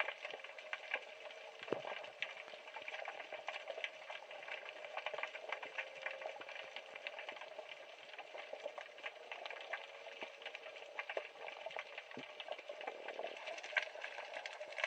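Underwater reef ambience picked up by a submerged camera: a dense, irregular crackle of small clicks over a steady hiss.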